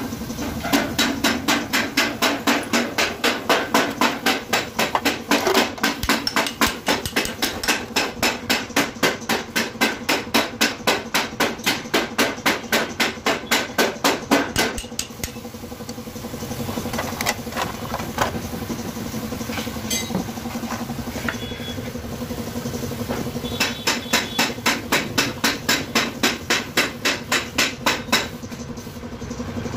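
Rapid, evenly paced hammer blows, about three a second, in two long runs: one through the first half and a shorter one near the end, with scattered knocks between. A steady low hum runs underneath.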